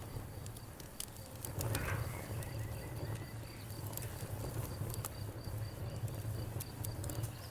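Campfire crackling with scattered sharp pops over a low steady rumble, while a cricket chirps steadily at a high pitch. A faint animal call sounds about two seconds in.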